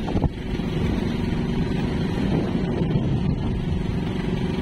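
Fishing boat's engine running steadily with an even low hum, and a couple of short knocks right at the start.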